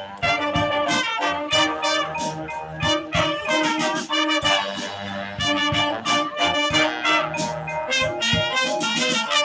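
Live brass band playing: trumpets and trombones carry the tune over a steady beat of drum hits.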